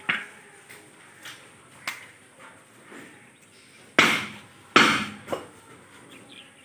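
Butcher's knives chopping raw beef into chunks: a series of sharp, irregular chops, the two loudest about four and five seconds in.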